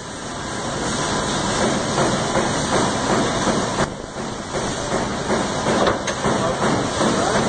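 Steady hissing running noise of a powered-up AMADA Pega 345 King CNC turret punch standing idle, with no punching strokes. It swells over the first second or so and dips briefly about four seconds in.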